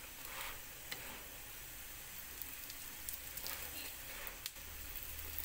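Msemen flatbread sizzling in a nonstick frying pan with a steady fine hiss and scattered small crackles. Near the start and again about four seconds in comes the soft scrape of a spatula lifting and turning the bread.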